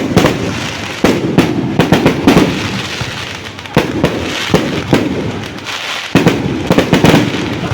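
Fireworks going off in a rapid, irregular string of sharp bangs and crackles, with a short lull about three and a half seconds in.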